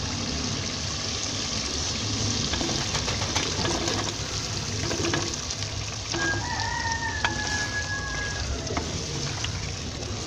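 Masala sizzling in a clay pot as cubed raw potatoes are tipped in and stirred with a wooden spoon, with a few light knocks. About six seconds in, a rooster crows: one long call of about two seconds.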